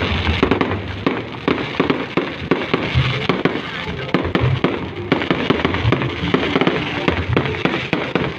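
Many fireworks going off in quick succession: a continuous run of bangs and crackles.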